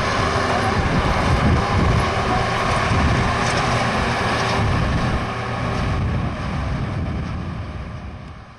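Caterpillar 815B soil compactor's diesel engine running steadily as the machine drives on its padfoot wheels, fading out near the end.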